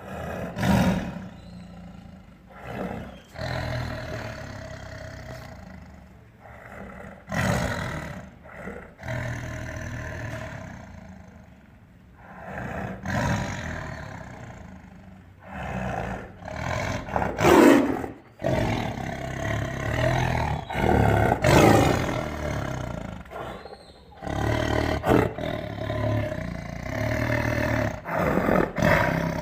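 Tiger snarling and growling: a series of loud, sudden outbursts several seconds apart, with lower rumbling growls between them.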